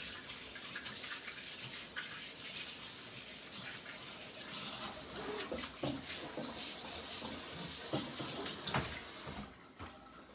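Water running steadily from a tap, shut off near the end.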